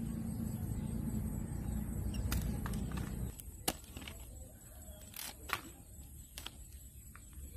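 A low rumble that cuts off about three seconds in, followed by a few sharp, isolated clicks.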